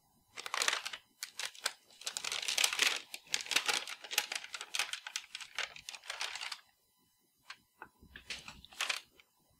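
A paper sheet crinkling and crackling as it is peeled off a T-shirt where a print was ironed on through plastic wrap, the paper pulling away from the melted wrap. The peeling crackle runs for about six seconds, then a few lighter rustles near the end.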